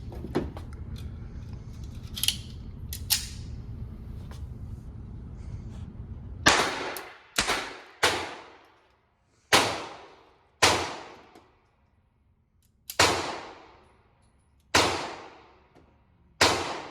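Eight .22 LR pistol shots from a Walther PPK/S. They start about six and a half seconds in and fall one to two and a half seconds apart, each with a short ringing echo that dies away. A few light clicks come before them.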